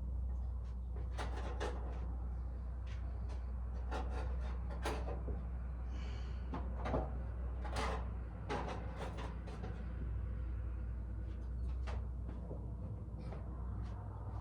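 Scattered knocks, clunks and a brief scrape of things being handled and moved, over a steady low hum.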